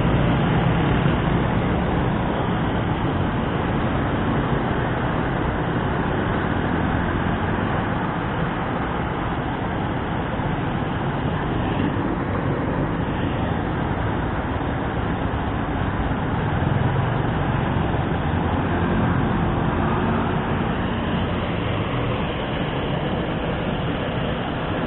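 Water rushing through an irrigation canal weir: a steady, even noise with no breaks.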